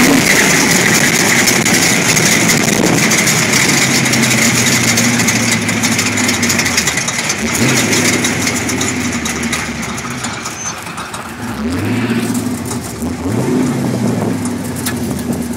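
Sandrail dune buggy's engine running at speed under a loud rush of air, easing off later on. The engine revs up briefly about halfway through and twice near the end.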